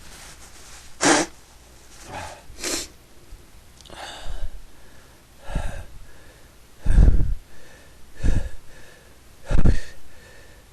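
A person sneezing over and over in a fit: a run of short, sudden sneezes and breaths, one every second or so.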